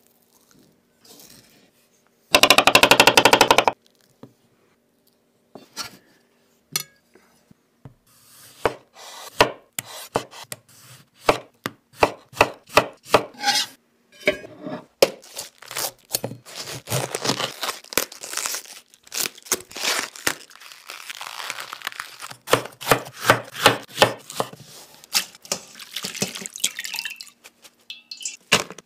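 Kitchen knife slicing soft food (avocado, then tomato) on a wooden cutting board, each cut ending in a sharp tap of the blade on the board. The taps come thicker and faster in the second half. A short loud burst of very rapid tapping comes about two and a half seconds in.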